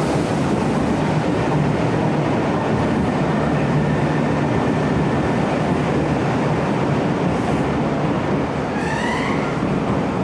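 Meitetsu train set 1511F running through the underground station tunnel: a loud, steady rumble of wheels and running gear that echoes in the tunnel. About nine seconds in comes a brief rising whine.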